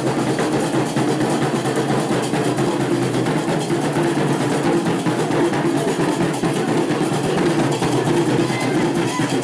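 Iron qraqeb (large metal castanets) clacking together in a dense, steady rhythm, played by a group of street musicians as festival music.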